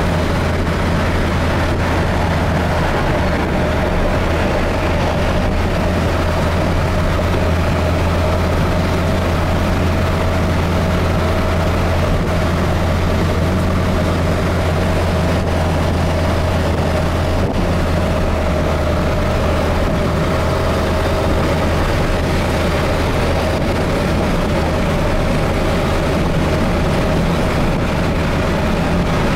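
Steady low drone of a truck's engine and tyres at highway speed, heard from inside the cab, with a faint steady whine above it.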